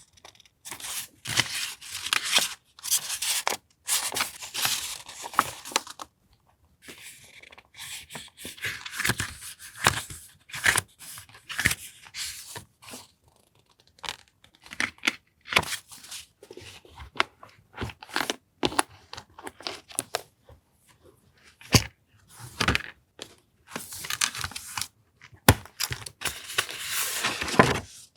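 Paper being handled at a desk: long rustling strokes in the first few seconds and again near the end, with short crinkles and crackles between them as stickers, papers and packaging are picked up and moved.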